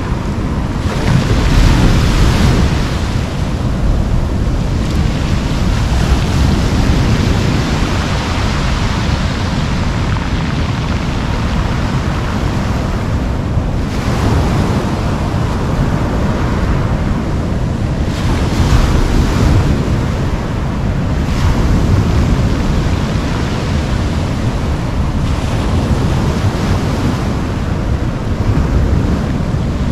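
Ocean surf breaking and washing up a pebble beach, swelling and easing every few seconds, over a steady low rumble of wind on the microphone.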